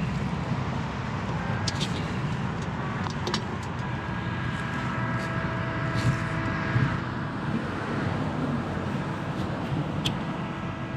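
Steady low rumble of road traffic, with a few sharp clicks and, from about four seconds in, faint steady tones held underneath.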